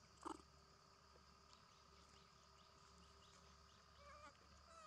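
Near silence with a faint steady high hum. There is one brief sharp sound just after the start, and a faint wavering animal call about four seconds in.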